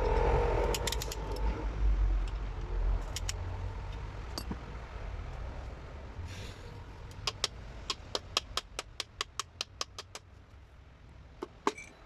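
Metal parts and hand tools being handled during engine work: a low rumble with scattered metallic clinks at first, then a run of about a dozen even sharp clicks, about four a second, and a couple more clicks near the end.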